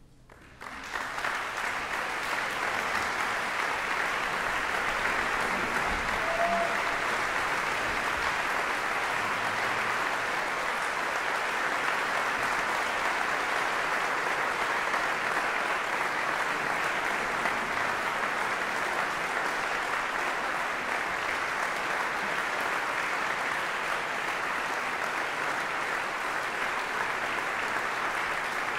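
Concert audience applauding. The applause breaks out suddenly about a second in, right after silence, then holds steady.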